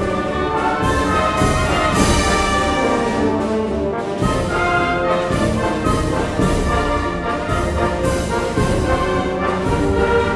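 Live concert wind band, woodwinds and brass, playing a Spanish pasodoble with a steady march beat.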